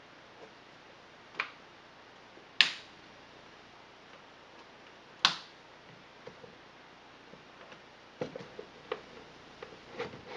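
Sharp clicks from handling a small wooden-cased radio: three separate clicks in the first half, the second and third the loudest, then a quick run of smaller clicks and taps near the end as a control on the side of the set is worked.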